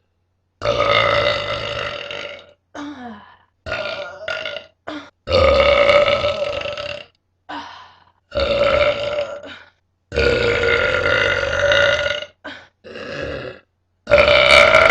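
A person burping over and over: five long, drawn-out burps of about two seconds each, with shorter ones between.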